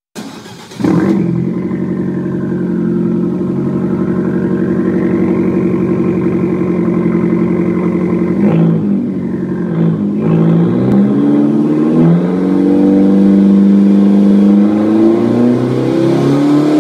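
Abarth 500's turbocharged four-cylinder engine catching with a sudden start about a second in, then running at a steady idle with a couple of brief changes in the middle. Over the last few seconds it is revved, its pitch rising slowly.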